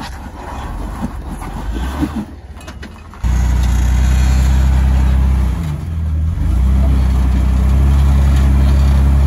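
Jeep Wrangler engine running at low revs while crawling over rocks. The first three seconds are quieter, with a few knocks, then the sound jumps suddenly to a loud, steady engine note, which eases off briefly about six seconds in.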